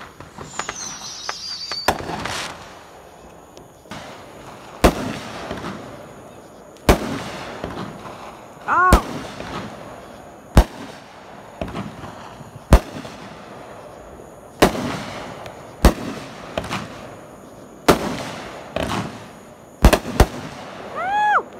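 Aerial consumer fireworks: about a dozen sharp bangs, one every second or two, each trailing off after the burst. A falling whistle sounds near the start.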